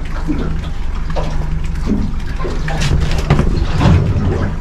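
Water sloshing and splashing around a small boat, over a steady low hum, with brief muffled voices.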